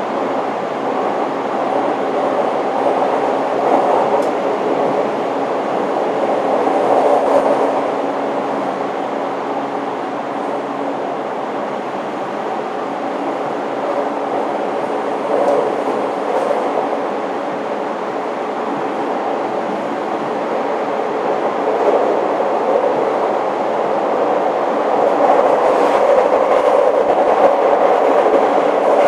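Running sound of a 583 series sleeper EMU motor car, heard from its vestibule deck. The wheels rumble continuously on the rails, with a steady hum from the MT54 traction motors and gears, growing a little louder near the end.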